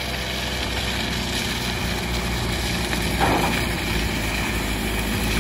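Car engine running steadily as the car drives up an icy, snow-covered dirt track, growing gradually louder as it approaches, with a brief rasp about three seconds in.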